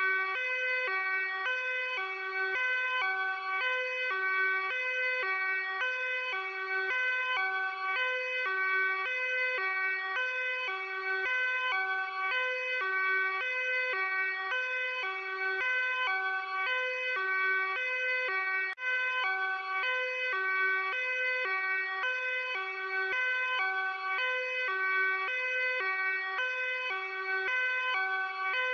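Luxembourg police siren sounding its hi-lo two-tone pattern, alternating steadily between a lower and a higher tone. It drops out for a moment about two-thirds of the way through.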